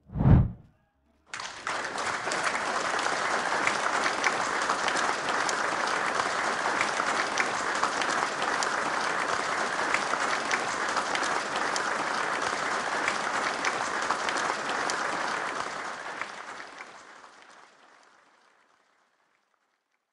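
A short, loud sound sweeping down in pitch. A second later a crowd starts applauding steadily, and the applause fades out over the last few seconds.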